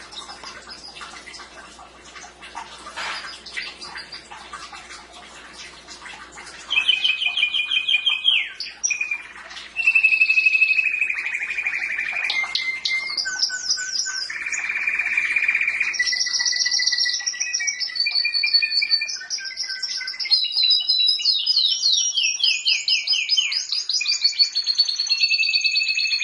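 Domestic canary singing: a few scattered quiet notes at first, then from about a quarter of the way in, loud continuous song of rapid trills and rolling repeated-note phrases, high-pitched and varied.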